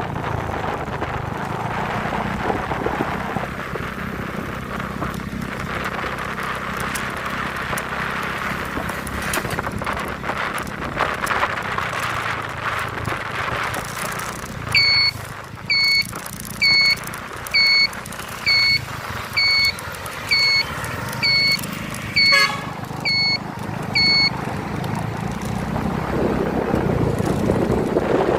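A vehicle running steadily, with engine hum and road and wind noise. About halfway through, an electronic beeper sounds about eleven short high beeps, just under a second apart, then stops.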